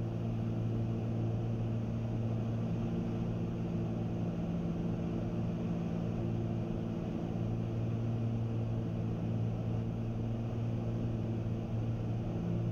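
Twin piston engines of a Cessna 310 droning steadily, heard from inside the cockpit. The pitch and level hold even throughout, with no power change.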